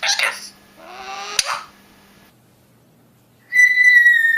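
Pet parrot giving two short calls, the second rising in pitch, then after a pause a long, slowly falling whistle.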